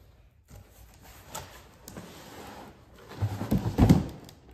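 An EcoFlow Delta 2 portable power station being lifted out of its cardboard box: a few light clicks and rustles, then louder low bumps and scraping of the unit against the cardboard about three seconds in.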